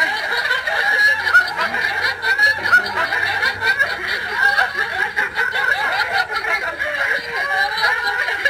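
Several people laughing and snickering hard without a pause, shrill and overlapping.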